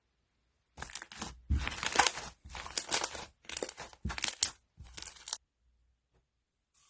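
Crunchy slime being squeezed and pressed by hand, crackling in six short bursts over about four and a half seconds.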